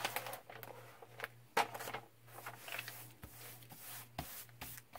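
Diamond painting canvas and its white release-paper cover rustling and crinkling as hands unroll it and smooth it flat, with a few sharper crackles, one about a second and a half in and one near the end.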